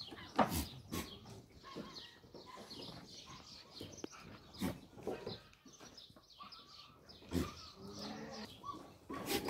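Goats moving about and bleating, with scattered sharp knocks, the loudest about half a second in and past seven seconds, and a few calls in the last couple of seconds.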